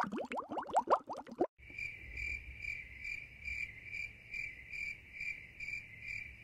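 A rapid run of short rising sounds, the loudest part, cuts off about one and a half seconds in. It gives way to a high, steady chirping trill that pulses a little over twice a second over a low rumble.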